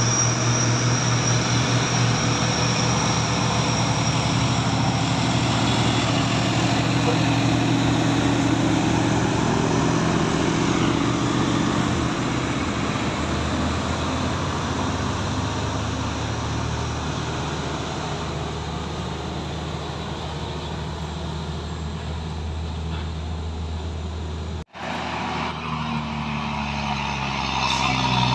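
Heavy diesel trucks pulling up a steep grade under load, engines running at low revs, with a car passing close by. After a momentary dropout near the end, a truck engine rises in pitch as it climbs.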